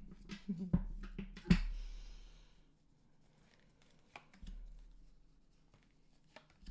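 Tarot cards being handled and drawn from the deck: scattered clicks and taps, the loudest about a second and a half in with a brief rustle after it, then a low thump and a few quieter ticks.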